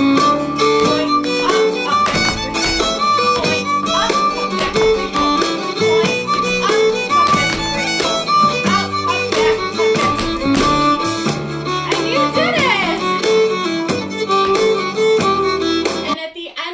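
Fiddle-led Irish dance music playing at a steady beat, cutting off suddenly near the end.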